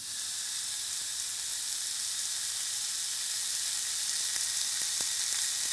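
Hanger steaks sizzling on hot grill grates: a steady searing hiss, with a few small crackles in the last second or so.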